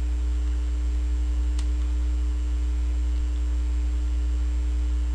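Steady low electrical mains hum with a fainter steady tone above it, and one faint click about one and a half seconds in.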